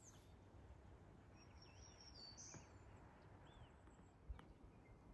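Near silence: low outdoor background hum with a few faint, scattered bird chirps, and one soft click about four seconds in.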